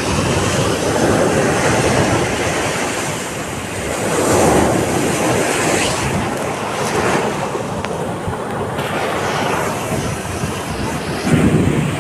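Sea waves breaking and washing up the shore in a continuous surf, swelling louder about four seconds in and again near the end, with wind on the microphone.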